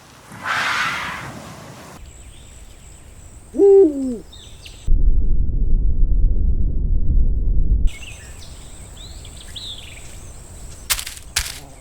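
A run of separate animal sound clips: a short rush of noise, then a brief call that falls in pitch, then about three seconds of loud deep rumbling, then sharp rapid clicks near the end.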